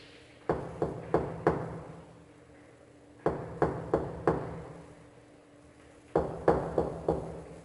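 Knocking on a door: three rounds of four quick knocks, about three a second, with a pause of a second or more between rounds. Each knock has a short ringing tail.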